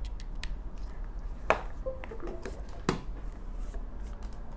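Light clicks and small handling noises, two sharper clicks about a second and a half apart, over a low steady hum.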